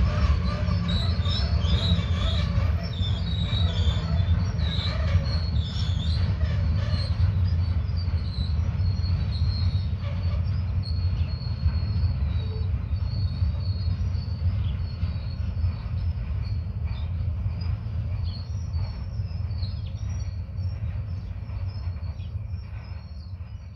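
Freight train wagons rolling past: a steady low rumble of wheels on rail with intermittent high-pitched wheel squeal, slowly fading as the train draws away.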